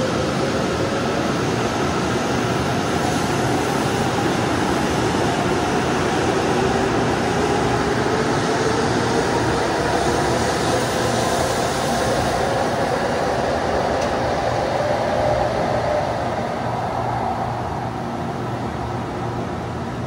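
N700S Shinkansen train pulling out and accelerating past: a motor whine that rises slowly in pitch over a steady rush of wheel and running noise, fading as the train draws away near the end.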